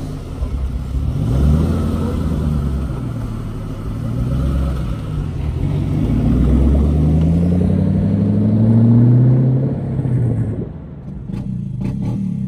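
Car engine revving several times, with one long climb in pitch over a few seconds that then falls away and settles to a quieter running sound near the end.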